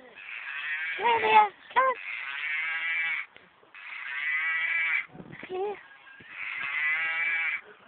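Stuffed toy cow mooing over and over, a recorded moo played four times, each about a second long, with short gaps between.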